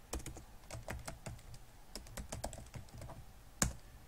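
Typing on a computer keyboard: a run of irregular keystrokes, with one much louder key press about three and a half seconds in.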